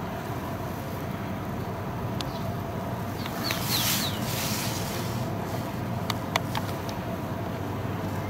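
Outdoor street ambience with a steady low rumble of distant traffic. A few short, high, falling bird chirps come about three and a half seconds in, and a few light clicks follow a couple of seconds later.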